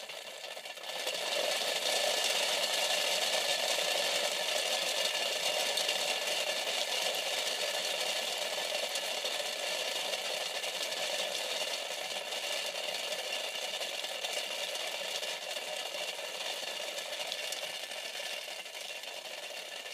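Conductive-painted styrofoam packing balls rattling fast inside a clear plastic CD spindle cover, flung between its aluminium-taped base and lid by a 20 to 30 kV static charge: a dense, even patter of tiny ticks. It grows louder about a second in, then slowly eases off.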